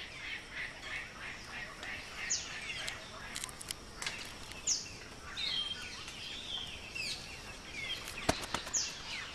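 Birds calling, short falling whistles and chattering calls, over a few sharp knocks: a quick cluster of about four in the middle and a couple more near the end. The knocks fit a male palm cockatoo drumming a stick against its nest hollow.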